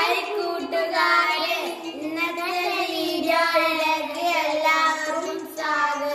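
Two young boys singing together in high children's voices, with long held notes.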